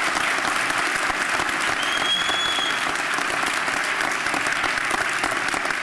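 Audience applauding steadily, with a brief high tone about two seconds in.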